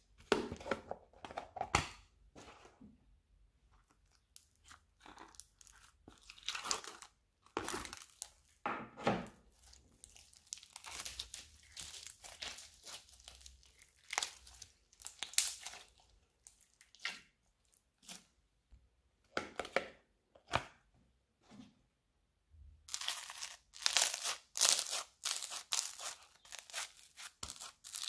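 Hands squishing and stretching slime studded with small foam beads: irregular sticky crackles and pops as the slime pulls apart and air pockets burst. There is a short pause about three quarters of the way through, then a dense run of crackling near the end.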